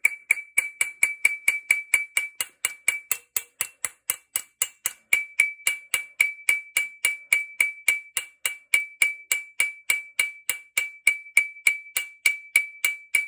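Small hammer tapping steadily on a rust-seized shotgun side-plate screw, about four blows a second, each with a bright metallic ring. The percussion is meant to break the rust bond and drive penetrating fluid in so the screw will free off.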